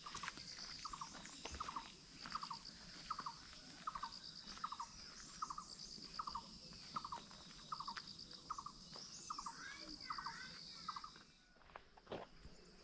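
Outdoor animal calls: a short double-pulsed note repeats about every three-quarters of a second, over a pulsing high insect-like chirping. A bird twitters briefly about nine to ten seconds in, and the calling stops just before the end.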